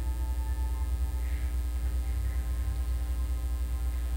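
Steady low electrical hum, mains hum carried in the microphone signal, with faint steady higher tones stacked above it.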